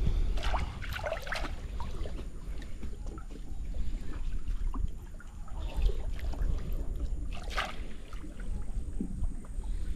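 Wind rumbling on the microphone over water sloshing and splashing at the lagoon's edge, with a sharper splash about three-quarters of the way through.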